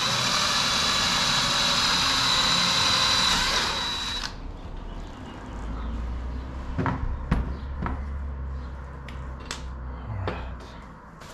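Cordless drill with a 5/16-inch bit boring out a pilot hole in the Jeep Gladiator's hardtop roof, running steadily with a high whine for about four seconds and then stopping. A few sharp clicks follow.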